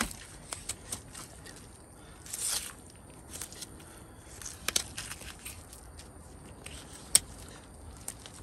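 Handling noise from butchering a deer carcass: scattered small knocks, clicks and scrapes, with a short rustling scrape about two and a half seconds in and a sharp click about seven seconds in.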